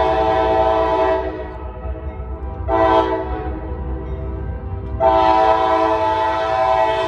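Norfolk Southern freight locomotive's air horn sounding a long blast, a short one about three seconds in, and another long one from about five seconds in: the close of the long-long-short-long grade-crossing signal. A low rumble of the moving train runs underneath.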